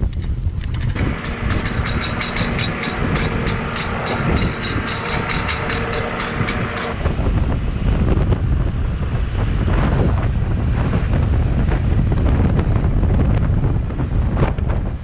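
Wind buffeting the microphone over a running vehicle. A rapid, even ticking, about four a second, runs through the first half and stops about seven seconds in.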